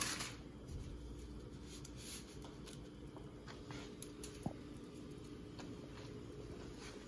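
Quiet, soft handling of a bundle of dry stick noodles, with a few faint clicks over a steady low hum.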